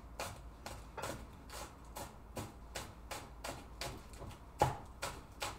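Chinese cleaver chopping scallions on a wooden cutting board: steady knife strikes, about two or three a second, with one harder strike near the end.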